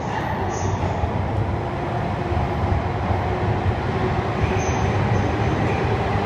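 Tohoku Shinkansen train running alongside the platform, a steady rumble and rush of wheels and air growing slightly louder.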